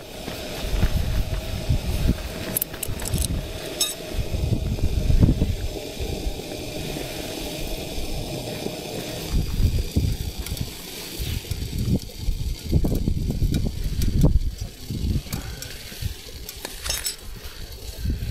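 Wind gusting against the tent and microphone in low, rumbling surges that come and go, with a few light metallic clinks from the cook pot and a steady hum that stops about halfway through.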